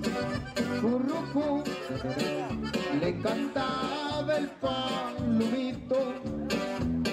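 Music with accordion and guitar over a steady beat.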